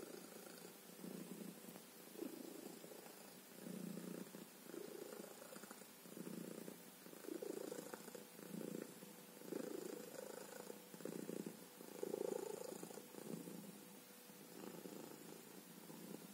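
Black-and-white domestic cat purring close to the microphone, a low continuous purr that swells and fades about once a second with each breath in and out.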